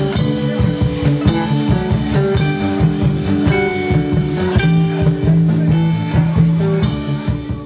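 Live rock band playing: guitar and bass guitar over a drum kit, with rapid drum hits throughout.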